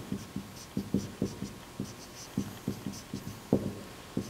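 Felt-tip marker writing on a whiteboard: a quick, irregular run of short taps and strokes of the tip.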